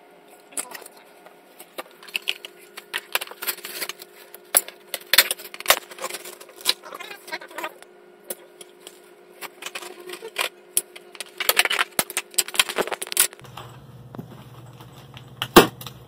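Irregular clicks, taps and rattles of gaming-chair parts being handled and fitted together, hard plastic and metal knocking, over a faint steady hum. Near the end comes a rattle of small loose hardware and the crinkle of its plastic packaging.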